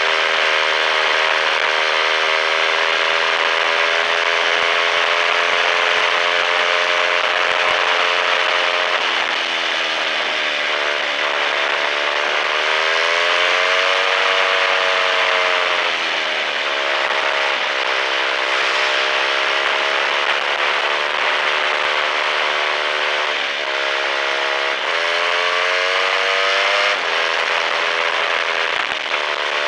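Royal Enfield Bullet's single-cylinder engine running at road speed, its note falling and rising several times as the throttle changes, under heavy wind and road noise.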